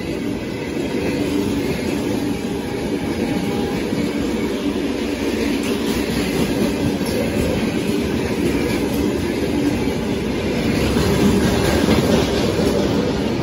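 Loaded freight wagons rolling past close by: a steady rumble of steel wheels on the rails, with clacking as the wheels cross the rail joints. It grows a little louder in the last few seconds.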